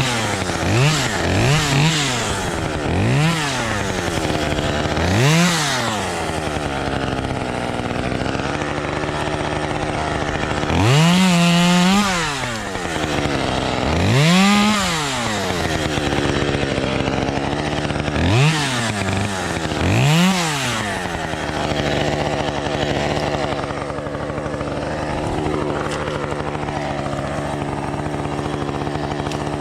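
Small two-stroke chainsaw engine revved up and back down again and again in short bursts, one held a little longer about eleven seconds in, then left running at a steady idle for the last third.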